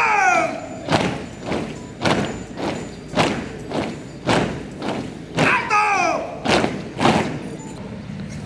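A formation of cadets marching in step, their boots stamping the ground together about twice a second. A falling shouted call rings out near the start and again about halfway through.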